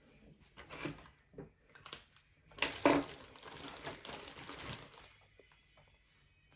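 Close handling noises: a few separate clicks and knocks, then about two seconds of dense crinkling and rustling, loudest about three seconds in.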